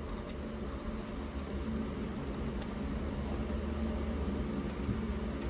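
Steady low mechanical hum, like a fan or air-conditioning unit running, with a few faint clicks from wires being handled at the battery.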